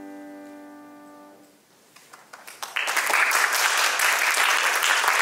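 Final grand piano chord of the aria dying away, then applause: a few scattered claps about two seconds in, building quickly into steady clapping.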